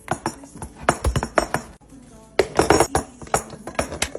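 Kitchen utensils and dishes clinking and knocking against each other in a quick, irregular run of sharp taps and clatters, busiest about a second in and again around two and a half to three seconds.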